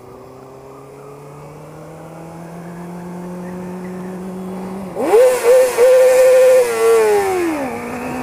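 Honda CBR600RR's inline-four engine and exhaust climbing steadily in revs, then about five seconds in a sudden loud hard rev to high rpm with a couple of quick dips, held briefly before falling off as the throttle closes, inside a road underpass.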